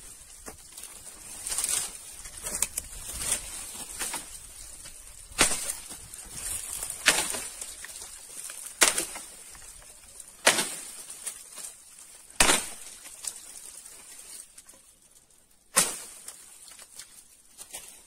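Long-handled axe chopping into dead branches, about six sharp strikes one to two seconds apart, with dry twigs crackling and leaves rustling in between.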